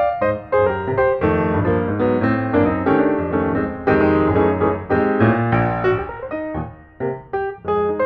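Instrumental background music with piano.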